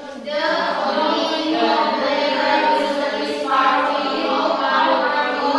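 A class of young students reading aloud in unison, a sing-song group chant of many voices with no breaks.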